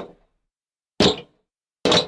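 Feet landing from jumps on a hollow wooden floor: a sharp thud about a second in and another near the end, each dying away quickly.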